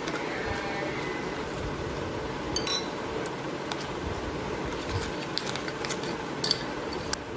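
A metal spoon stirring damp semolina and curd in a glass bowl: soft scraping with a few light clinks of the spoon against the glass.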